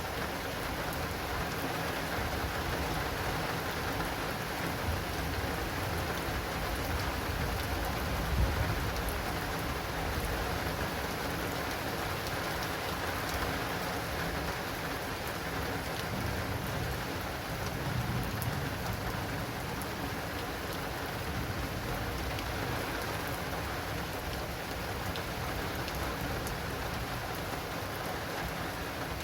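Heavy rain falling steadily and pattering on an acrylic awning, dense with small drop ticks. Low rumbles of thunder swell about a third of the way in and again just past halfway.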